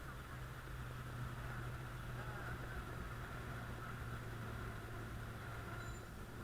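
Steady low hum of motor-vehicle engines in street traffic, with faint indistinct sounds wavering above it.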